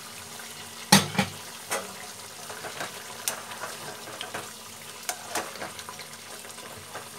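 Thick mutton curry simmering and sizzling in a kadai while a spatula stirs it, knocking and scraping against the pan several times, loudest about a second in.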